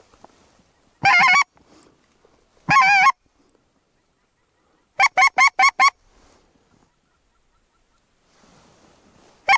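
A hand-blown goose call used by a hunter, sounding honks close to the microphone: one long warbling honk about a second in, another near three seconds, a quick run of five short honks around five seconds, and two more right at the end. The honks are louder than the hunter's own voice.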